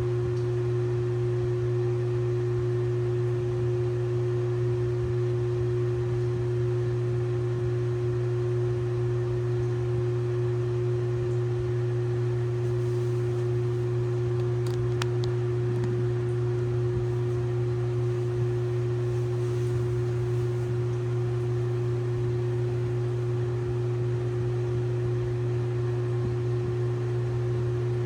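LG WT7600HVA top-load washing machine running with a steady, unchanging hum and a constant tone above it.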